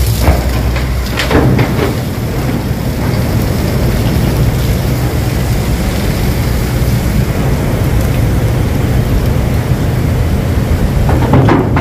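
Tugboat's diesel engine running steadily under the rush of churning water and wind on the phone's microphone, with brief louder surges about a second in and near the end.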